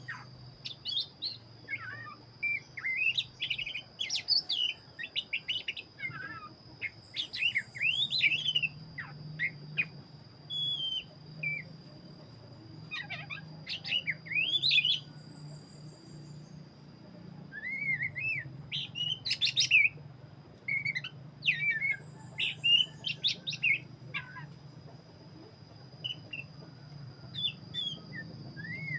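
Black-breasted oriental magpie-robin (kacer) in full song: bursts of varied, quickly rising and falling whistled phrases with short pauses between them. A thin steady high tone and a low hum run underneath.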